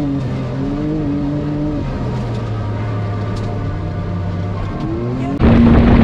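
ATV engine running along a dirt trail, its pitch rising and falling a little with the throttle. About five seconds in it gives way suddenly to the much louder, rougher engine of a Can-Am Maverick X3 Turbo RR side-by-side at speed: a turbocharged three-cylinder with an aftermarket HMF exhaust.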